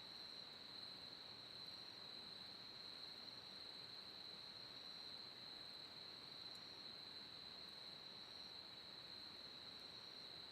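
Faint, steady high-pitched insect trill with no break, and above it a second, fainter insect chirping in short phrases repeated about every second; a few faint ticks, fitting crackles from the wood fire.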